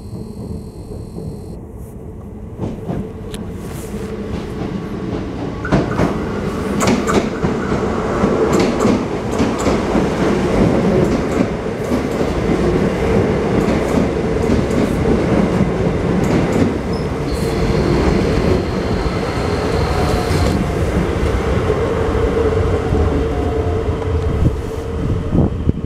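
An Irish Rail 8600 class DART electric multiple unit arriving. Its rumble builds from a couple of seconds in, with wheels clacking over the rail joints, then runs steadily under a constant hum as it draws along the platform. A thin high steady tone sounds for about three seconds past the middle.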